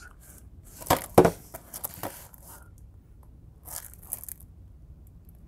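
Shrink-wrapped plastic DVD case being handled and turned over in the hands: the plastic wrap crinkles and rustles, with two sharp clicks about a second in and another brief rustle near four seconds.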